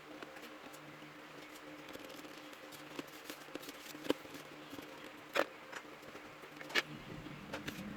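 Scattered small clicks and taps from hands handling parts inside an opened laptop, a few sharp ticks over a faint steady hum.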